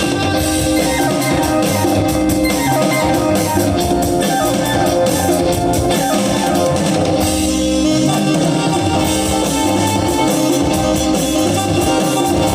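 Live band music through a PA system during a sound check: guitar over a drum kit beat, playing steadily and loudly.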